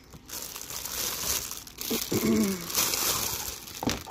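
Clear plastic wrapping crinkling and crackling as a packaged hygiene kit is handled and unwrapped.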